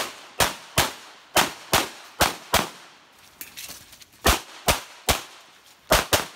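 A 1911-pattern pistol in .45 ACP fired in quick succession: about a dozen sharp shots, mostly in pairs about a third of a second apart, with a pause of about a second and a half in the middle.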